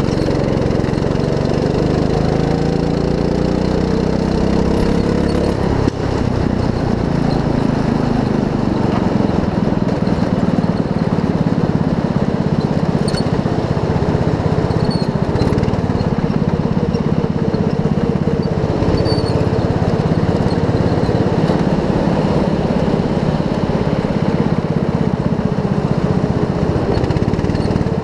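Go-kart engine running at speed, its pitch rising and falling over the first six seconds or so, then holding steadier.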